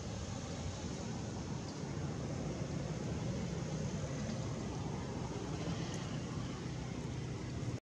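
Steady low outdoor rumble, like distant traffic, with no distinct events; it cuts out abruptly just before the end.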